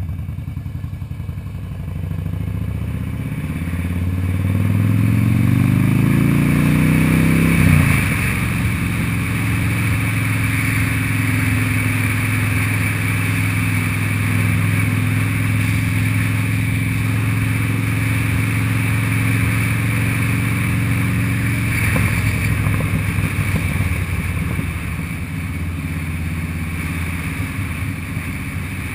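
Harley-Davidson Fat Boy's air-cooled V-twin engine under acceleration, its pitch rising steadily for several seconds and then dropping sharply at a gear change about eight seconds in, after which it runs steadily at cruising speed.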